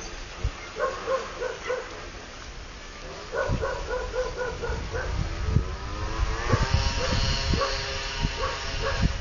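Strong wind gusting against the microphone, growing from about three and a half seconds in. Over it sounds a regular series of short pitched tones, about four a second, with a rising sweep near the middle.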